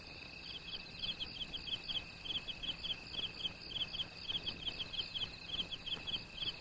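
Crickets chirping in a night-time ambience: short, high chirps in quick pairs and threes, several a second, over a steady high-pitched insect trill.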